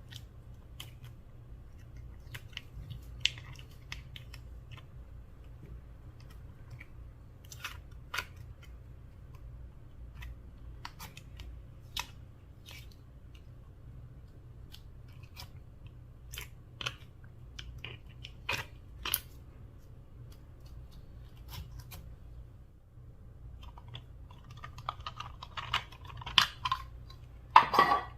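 Slime being worked by hand, giving scattered sticky clicks and pops, with a denser run of crackling squelches near the end.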